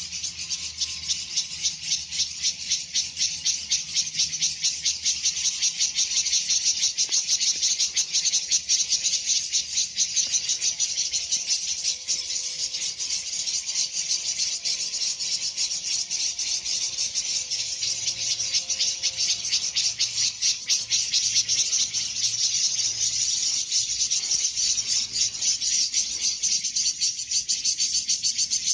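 Insects chirping: a dense, high-pitched pulsing at a fast, even rate that keeps going without a break.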